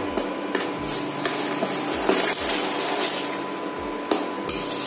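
Steel ladle stirring thick curry gravy in a stainless steel pan: repeated scrapes and knocks of the ladle against the pan, a few a second, over a low hiss from the hot gravy.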